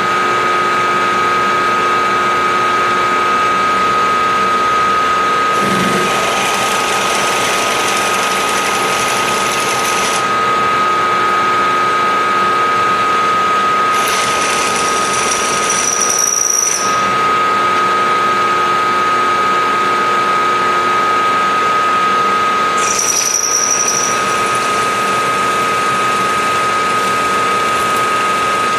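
Milling machine spindle running steadily with a constant whine as a twist drill feeds down into a metal block. Three stretches of hissing cutting noise come and go, about 6 seconds in, near the middle and a little after, two of them with a brief high squeal.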